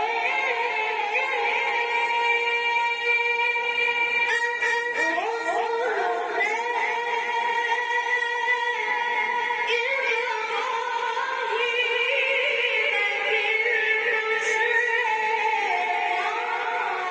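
A man reciting the Quran in the melodic, drawn-out style, holding long ornamented notes that slide up and down in pitch.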